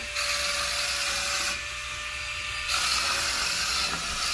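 Small electric motors of a remote-control toy spider whirring, in two spells with a pause of about a second in the middle, over a steady high hum.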